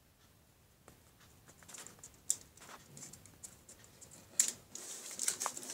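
Dried leaves crackling and rustling as they are handled and pressed onto a glued cardboard frame, with scattered light taps. Sharp clicks come about two seconds in and again about four and a half seconds in, and the crackling is busiest near the end.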